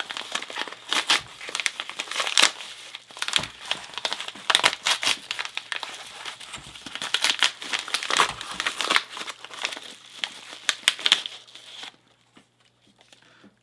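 Packaging being unwrapped and crumpled by hand, a long run of irregular crinkling and crackling with some tearing, stopping about a second and a half before the end.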